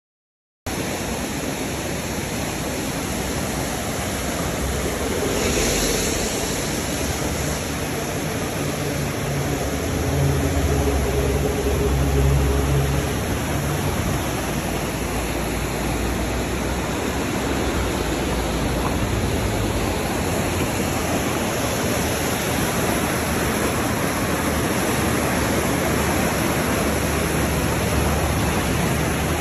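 The Fier river in flood, muddy water rushing past and breaking white around a driftwood jam against a bridge: a loud, steady rush of water that starts suddenly about a second in, with a deeper rumble swelling for a few seconds midway.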